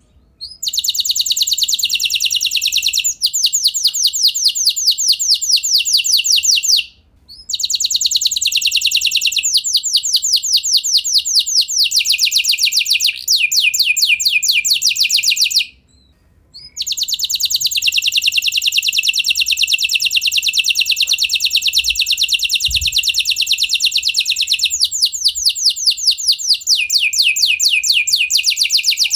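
Domestic canary (kenari F1) singing in long phrases of rapid repeated notes and sustained trilling rolls, broken by two short pauses.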